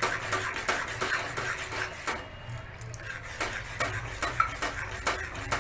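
A spoon stirring a thick jaggery and flour mixture in a cooking pan, clicking and scraping against the pan a few times a second, with a short lull about two seconds in. The mixture is stirred continuously so that it does not form lumps.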